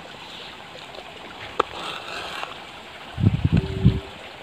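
Steady rush of stream water with a single sharp tap of a kitchen knife on a wooden cutting board as green chillies are slit lengthwise. A brief low rumble about three seconds in is the loudest sound.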